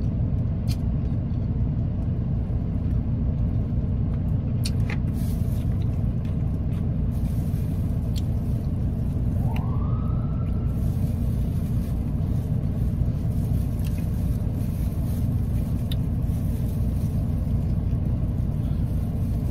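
Steady low rumble of a car idling inside its cabin, with a few faint clicks of the spoon against food containers.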